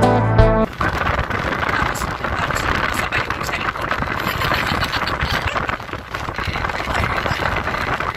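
Wind buffeting the microphone on the open deck of a moving ferry: a loud, steady rushing rumble with constant flutter. Guitar music cuts off just before it, under a second in.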